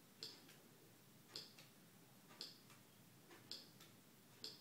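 Faint, evenly spaced key clicks from a Lightwriter text-to-speech communication aid as a single finger presses its keys one letter at a time, five clicks about a second apart.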